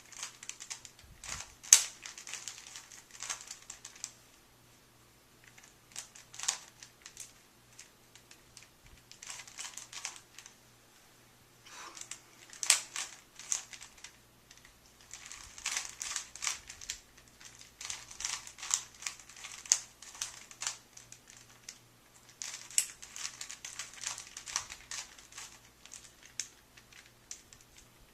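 A 3x3 Rubik's Cube being turned by hand during a solve: bursts of quick plastic clicks and rattles as the layers are twisted, broken by pauses of a second or two.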